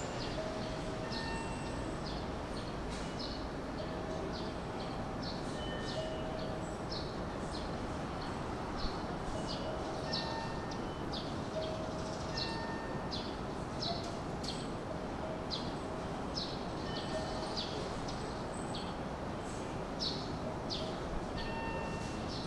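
Steady noise of a Hanshin 5500 series electric train heard from the front of the car, with short high chirps several times a second throughout.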